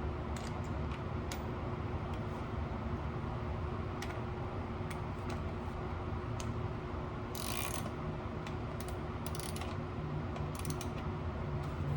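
Scattered metallic clicks of hand tools and a ratchet wrench turning in short strokes, with one brief rasping ratchet burst about two-thirds of the way through, over a steady background hum.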